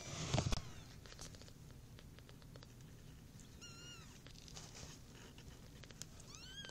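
Newborn kittens nursing: a soft, low purring, with two short, high, arching mews from a kitten, one about halfway through and one near the end. A brief rustle comes at the start.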